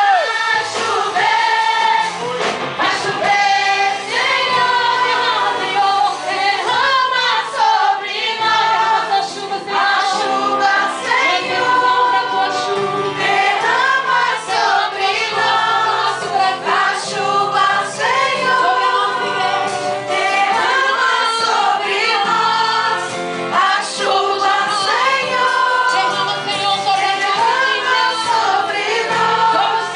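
A group of voices singing a gospel worship song in Portuguese over instrumental accompaniment.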